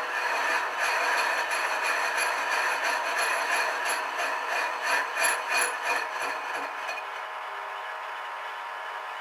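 A metal lathe cuts a steel bearing-housing ring, the cutting tool scraping and clattering irregularly over a steady machine whine. About seven seconds in the cutting noise stops and only the machine's steady running tone remains.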